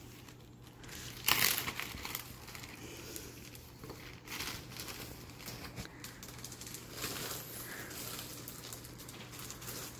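A clear plastic bread bag crinkling and rustling as hands reach in and pull out bread rolls. The rustling is loudest about a second in, then comes in smaller bursts.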